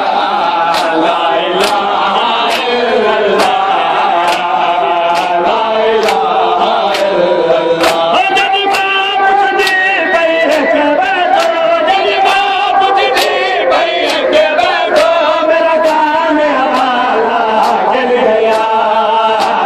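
A crowd of men chanting a noha in unison, with sharp, evenly spaced matam strikes of hands on bare chests landing together roughly once a second.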